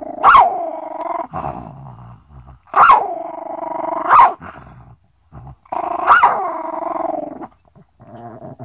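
Chihuahua growling in three long spells, each broken by one or two sharp snaps that are the loudest sounds: a small dog guarding its bone.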